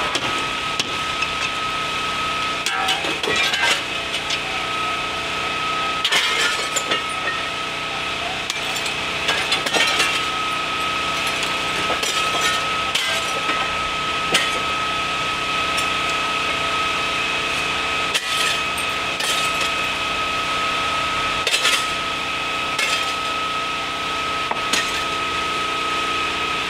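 A steady engine drone with a constant high whine, under scattered sharp cracks and snaps from the burning house.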